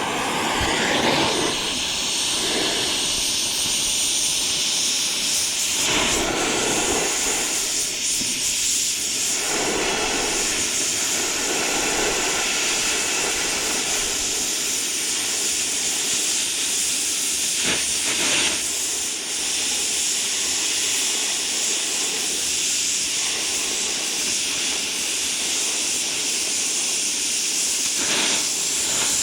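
Stick welding arc sizzling and crackling steadily through one long continuous bead, with a few sharper pops along the way.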